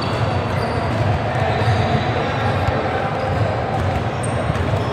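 Basketball being dribbled on a hardwood gym floor, with shoes on the court and a few short high squeaks, over a steady wash of spectator chatter echoing in a large hall.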